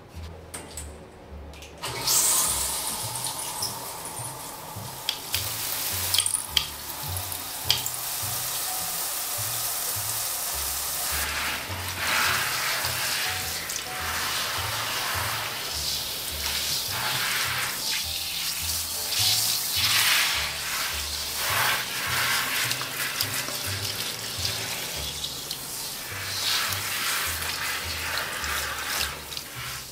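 Handheld shower head spraying water onto a cat's wet coat and the tiled floor, a steady hiss that comes on suddenly about two seconds in. Background music with a low bass line plays under it.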